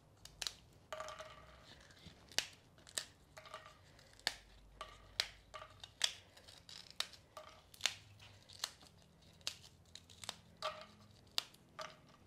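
Fried pork rinds (chicharrón) being snapped by hand into small pieces: a run of sharp, crisp cracks, about two a second.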